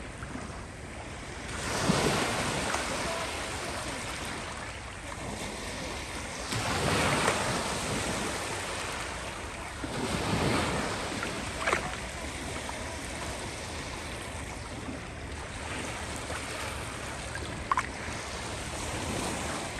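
Sea waves breaking and washing on the shore, the noise swelling with each wave, about three big surges spread over the stretch.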